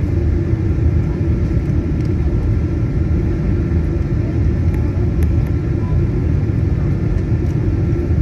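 Steady low rumble inside the cabin of a Boeing 737-900ER: its CFM56-7B engines and airflow, with a faint steady whine above it.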